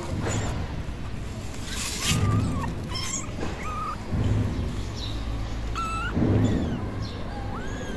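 Young kittens mewing: several short, high-pitched cries, one kitten lifted and handled, with an arched cry near the end. Dull low thuds of handling come between the cries and are the loudest sounds.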